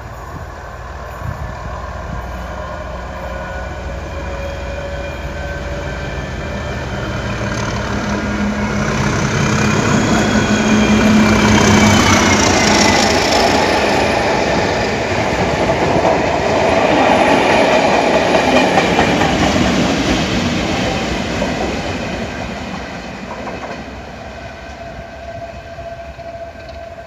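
Class 37 diesel locomotives with English Electric V12 engines passing at speed with a train of test coaches. The engine sound and a high whine build as the leading loco approaches, fall in pitch as it goes by about halfway through, and the coaches' wheels and the rear loco follow before the sound fades.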